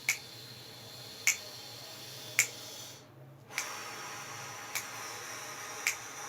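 Metronome clicking about once a second, set to 60 beats per minute, over a slow four-beat breath in. After a brief pause, a steady airy breath out follows over the next four beats. This is a wind player's breathing warm-up before playing the trombone.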